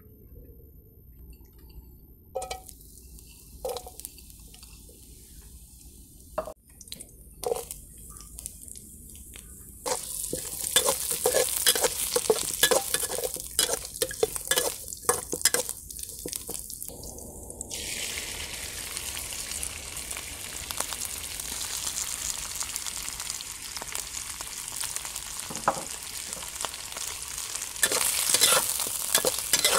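Stir-frying in a wok: oil sizzling while a metal spatula scrapes and tosses garlic, ginger and carrot, then slices of lamb liver. A few scattered clicks come first. The sizzle starts suddenly about ten seconds in, and it grows louder, with quick scraping strokes, near the end as the liver is stirred.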